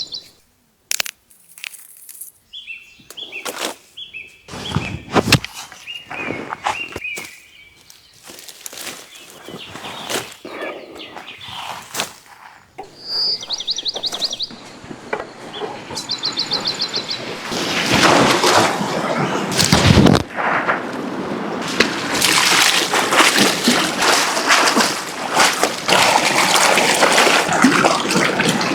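Birds chirping in short, rapid trills, with scattered knocks and clatter between them; after about eighteen seconds a loud, continuous rough noise takes over.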